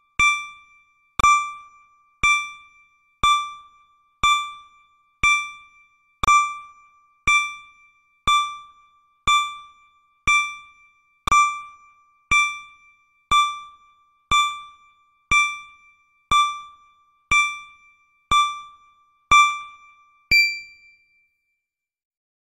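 Electronic countdown-timer beep: a short pitched ping, sharp onset and quick fade, repeating once a second, one for each second counted down. The last ping, about twenty seconds in as the timer reaches zero, rings a little brighter, and then the pings stop.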